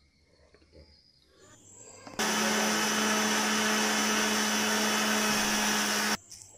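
Electric mixer grinder grinding boiled fenugreek seeds in its jar: it starts suddenly about two seconds in, runs steadily with a constant hum, and stops abruptly about four seconds later.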